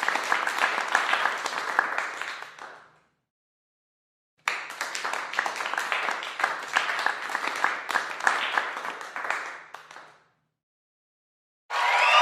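Group applause: a round of clapping with many distinct claps that dies away, a pause, then a second round that also dies away. Just before the end, louder cheering and whooping starts.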